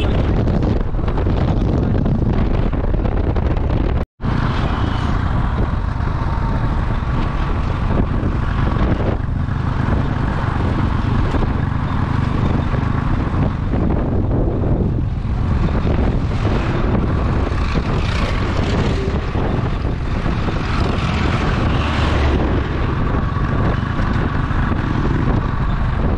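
Steady running noise of a moving vehicle: a low rumble with wind buffeting the microphone. The sound cuts out for an instant about four seconds in.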